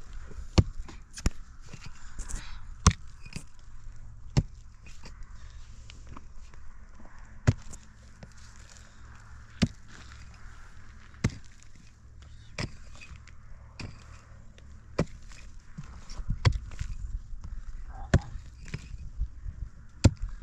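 A hand tool striking hard, about a dozen sharp blows, one every second or two, over a low steady rumble.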